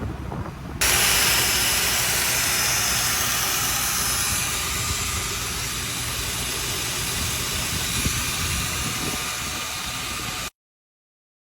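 Welding arc from an automatic bore welder hissing steadily, starting suddenly about a second in and cutting off abruptly near the end, over a low engine running underneath.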